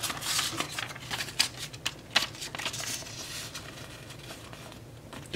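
Paper banknotes rustling and crinkling as a prop $20 bill is pulled from a stack and handled, with a flurry of crisp flicks over the first three seconds that thins to a quieter rustle.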